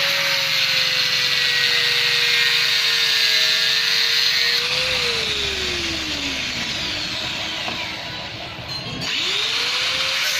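Electric cutting tool whining steadily as it cuts the steel shell of a 2-ton Mitsubishi rotary compressor. About five seconds in, its pitch slides down as the motor slows; just after nine seconds it spins quickly back up to speed.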